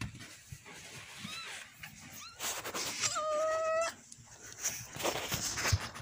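Newborn kitten mewing: two short thin rising cries, then one longer steady cry about three seconds in, with rustling around them.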